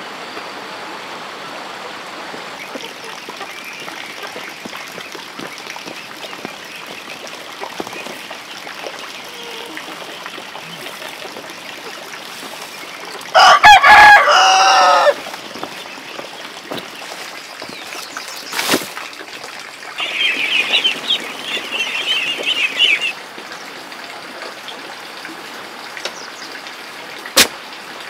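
Domestic chickens: a rooster crows once, loudly, for about two seconds about halfway through, and a few seconds later hens cluck in a quick chattering run. A steady rushing hiss lies under it all, with a couple of sharp clicks near the end.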